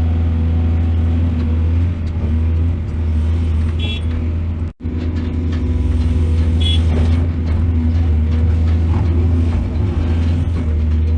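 Heavy diesel engine of a mining excavator running steadily with a deep low rumble; the sound cuts out for an instant a little under halfway through.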